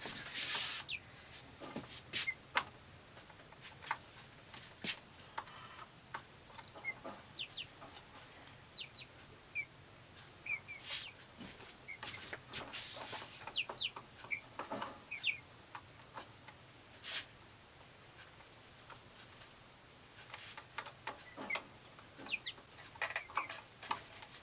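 Silkie chickens clucking and peeping in short, scattered high calls, mixed with light clicks and rustles of things being handled.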